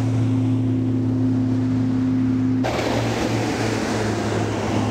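A RIB at speed on a Yamaha 350 hp V8 petrol outboard, a steady engine drone; about two and a half seconds in it cuts abruptly to a RIB on the COX 300 hp V8 diesel outboard running at speed, its engine heard under the hiss of its wake and spray.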